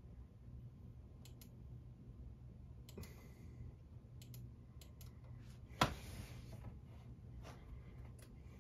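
Scattered light clicks over a steady low hum, with one sharper click about six seconds in.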